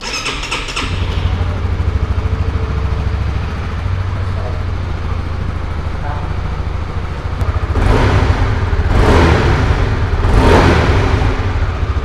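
2022 Honda CB150X's single-cylinder engine cranked on the electric starter and catching within about a second, then idling steadily. It is revved twice near the end, each rev swelling and falling back to idle.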